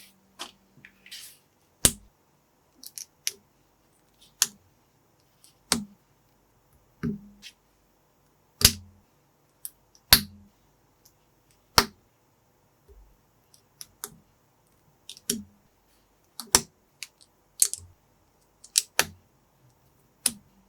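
Small plastic building bricks clicking and snapping together as they are handled. The clicks are sharp and separate, coming irregularly about once every second or so, with a few quick double clicks.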